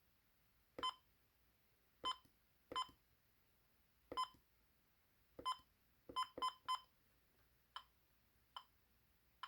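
Key-press beeps from a First Alert WX167 weather radio as its buttons are pressed: eight short electronic beeps at uneven intervals, three in quick succession about six seconds in, then three fainter clicks.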